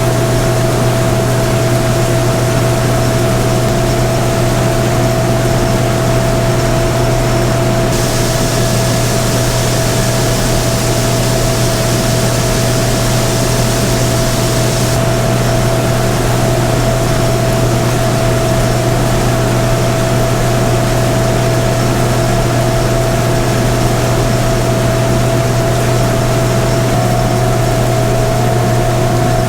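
Combine harvester running steadily while harvesting corn: a constant engine drone with a steady whine above it, and a higher hiss that joins in for several seconds about a quarter of the way in.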